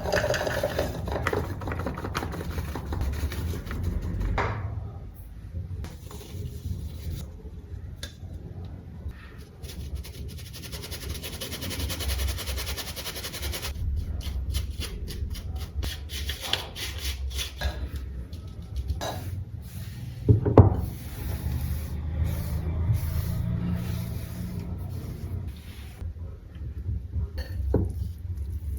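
Kitchen food-preparation sounds: rubbing, scraping and the handling of utensils and containers over a steady low hum, with scattered clicks and one sharp knock about twenty seconds in.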